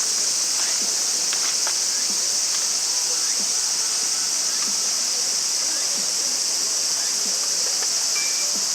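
Steady, high-pitched insect chorus that does not let up or change.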